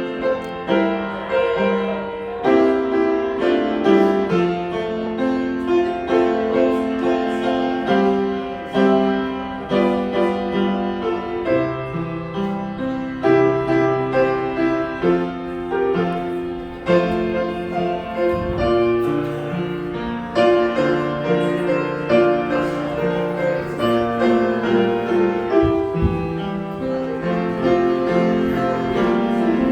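Piano music: a melody over held chords, notes changing every second or so, with no singing.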